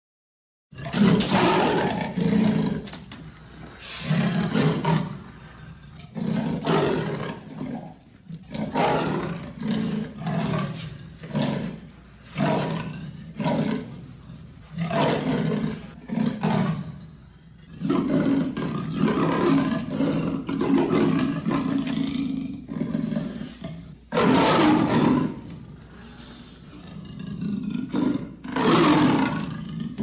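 Leopard roaring in a long series of short, loud calls, roughly one a second, with one drawn-out call lasting several seconds past the middle and two loud roars near the end.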